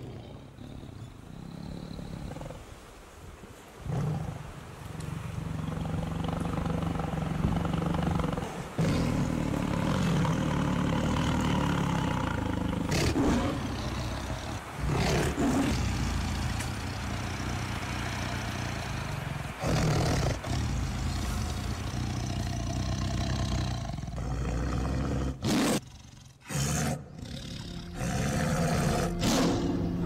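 Bengal tiger roaring and growling over and over: deep rumbling calls broken by short pauses.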